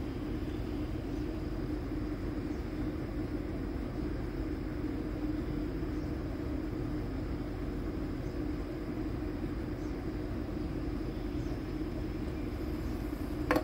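Steady low hum and rumble of background noise with a constant drone, and two sharp clicks near the end.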